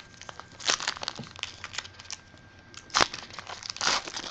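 Plastic packaging and trading cards crinkling and rustling as they are handled, with scattered light clicks and one sharper snap about three seconds in.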